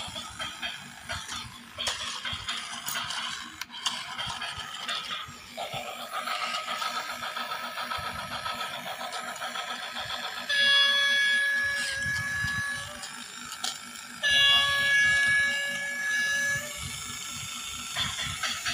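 Electronic sound effects from a battery-powered toy DF4B diesel locomotive model. About ten seconds in there are two long, steady horn blasts, each lasting two to three seconds, starting and stopping abruptly. Before them comes a busy, hissing mix of sound.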